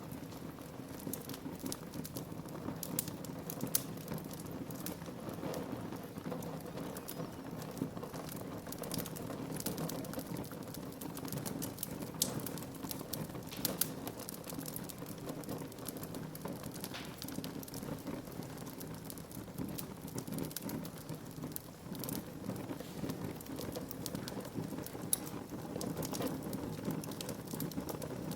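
Wood fire burning in a fireplace: a steady low rush of flames with frequent sharp crackles and pops, a few of them louder, about 4 seconds in and again near the end.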